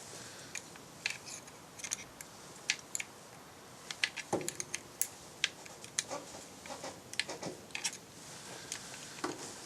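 Scattered small metallic clicks and rattles from handling a Glock pistol fitted with a .22 LR conversion slide, as its action is worked between malfunctions. About four seconds in there is one duller knock with a short ring.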